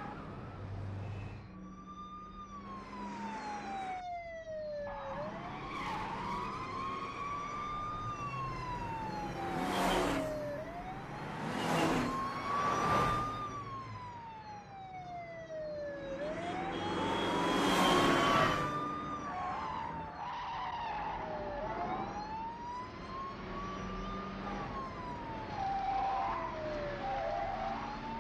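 Police car siren wailing in a slow rise and fall, over the noise of cars racing through the streets. The car noise swells loudly about ten, twelve and eighteen seconds in.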